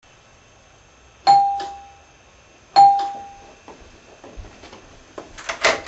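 Doorbell rung twice, about a second and a half apart, each chime a clear tone that fades away; a short clatter follows near the end.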